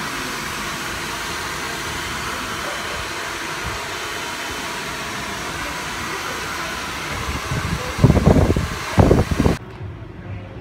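Handheld hair dryer blowing steadily with a constant rushing hiss, broken by a few loud low rumbles about eight seconds in. It cuts off suddenly near the end.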